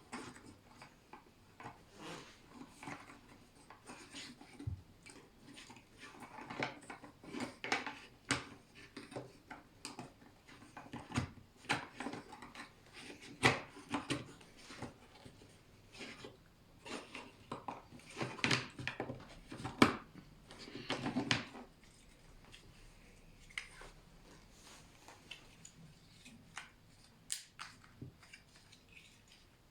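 Plastic kit parts being handled and pressed together: irregular clicks, taps and rustling, with the loudest clicks in the middle.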